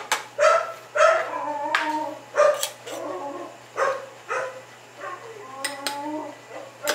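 Metal moka pot parts clicking and clinking as they are handled, amid repeated short pitched whines.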